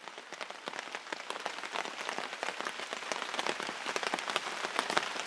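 Rain pattering on a tarp shelter: a dense spatter of fine drop impacts that grows steadily heavier as the shower starts.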